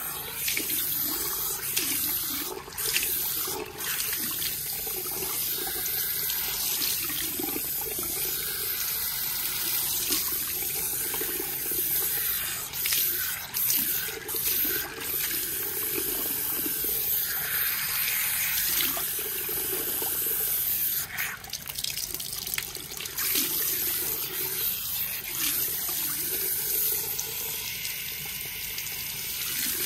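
Handheld shower head at a salon shampoo bowl spraying water through wet hair and splashing into the basin as the hair is rinsed. A steady rush of water that shifts in level as the sprayer moves around the head.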